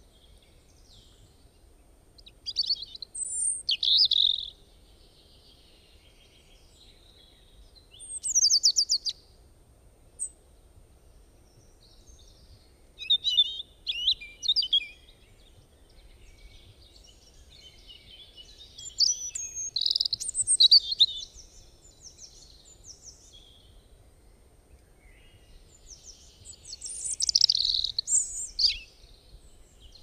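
Songbirds singing: about five loud, high-pitched song phrases, each a second or two long, coming every four to six seconds, with fainter chirps between them over faint low background noise.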